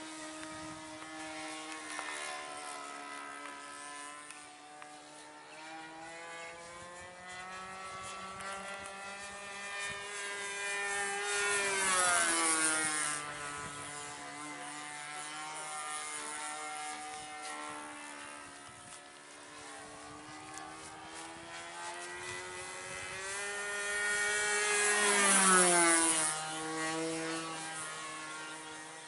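Evolution 15cc two-stroke gasoline engine with a 13x6 propeller, droning steadily in a Hangar 9 Ultra Stick RC plane in flight. The note swells and falls in pitch as the plane makes two close passes, about twelve seconds in and again near the end.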